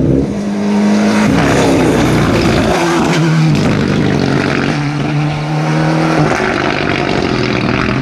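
Rally car engine running hard at high revs, its note holding steady and then dropping in steps as it changes gear, with road noise over it.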